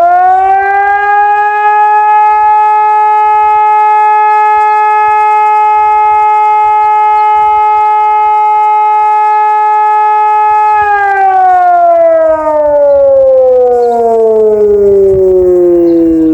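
Single-tone ECI 600 civil-defence siren sounding a loud, steady tone after winding up. About eleven seconds in, the tone begins a slow downward glide in pitch.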